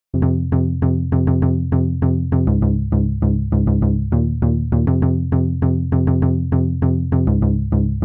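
Electronic intro music: quick repeated plucked synth notes over a sustained bass line that changes note every couple of seconds.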